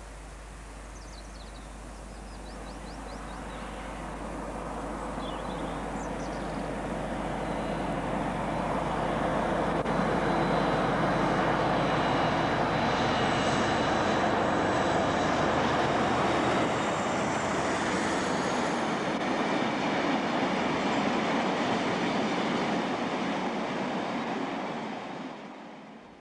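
British Rail diesel locomotive hauling a train of oil tank wagons, its engine and the wagons' wheels on the rails growing louder as it approaches and passes close by. A thin high whine sounds at the loudest point, and the noise falls away suddenly near the end.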